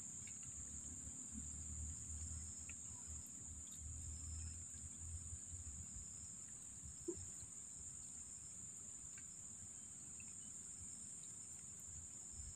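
Faint, steady high-pitched trilling of insects, with a low uneven rumble underneath and a small click about seven seconds in.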